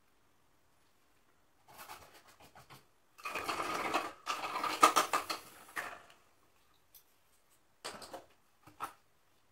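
Painting supplies being handled: a burst of fast clicking and rattling lasting about three seconds, then a couple of short clatters near the end.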